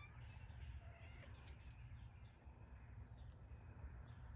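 Near silence, with faint outdoor ambience: insects trilling high in short repeated bursts, and a faint short call about a second in.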